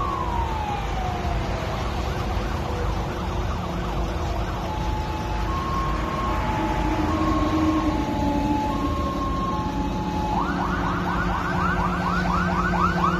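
Fire engine siren on an emergency run. It opens with a falling wail, plays a two-tone hi-lo alternating between two pitches about every half second, then switches to a fast yelp of quick rising sweeps for the last few seconds. Steady low engine and traffic noise runs underneath.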